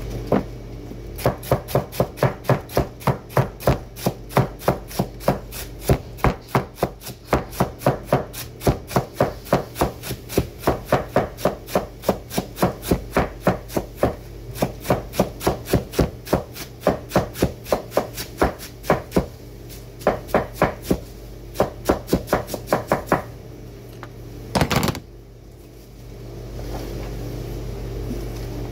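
Kitchen knife chopping cabbage into shreds on a wooden cutting board, in quick regular strokes of about four a second with short pauses. The chopping stops a little after twenty seconds, and a brief louder noise follows.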